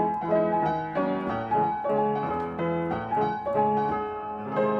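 Piano music: a gentle melody of struck notes in a steady, even pulse.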